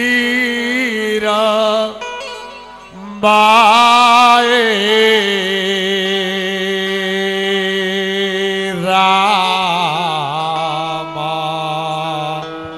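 Male voice singing a drawn-out, ornamented line of a Bhojpuri chaita devotional song, with harmonium accompaniment. The singing drops briefly about two seconds in, then comes back loud and settles into a long held note.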